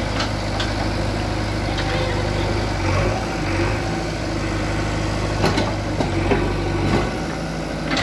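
JCB 3DX backhoe loader's diesel engine running steadily while the machine works in brick rubble, with a few sharp knocks and clatters in the second half.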